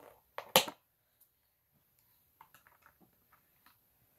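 Cardboard box handled as a tightly packed plastic model horse is worked out of it: one sharp knock about half a second in, then a run of faint light ticks and rustles in the second half.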